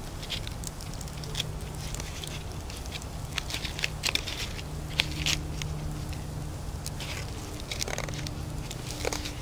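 Scattered small clicks and crackles as a knife cuts cooked squirrel meat away from the bone on a sheet of birch bark, mixed with the crackle of the wood fire beside it.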